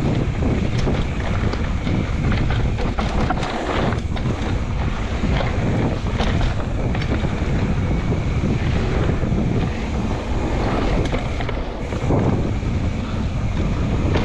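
Steady wind rush buffeting the microphone during a fast mountain-bike descent on a natural dirt trail, with scattered clicks and knocks from the bike over rough ground.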